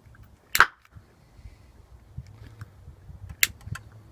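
Sharp bangs of oxyhydrogen (HHO) gas from a homemade electrolysis generator igniting, one loud bang about half a second in and another near the end.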